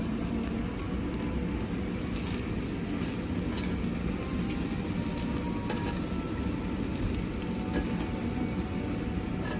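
Meat sizzling on a yakiniku grill over a steady low rumble, with a few faint pops.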